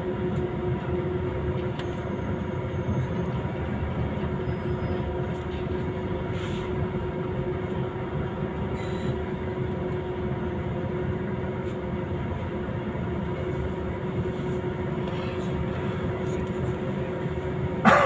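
Cabin noise inside a Scania Citywide CNG city bus: its natural-gas engine running with a steady low rumble and a constant whine. A sudden, short, loud knock near the end.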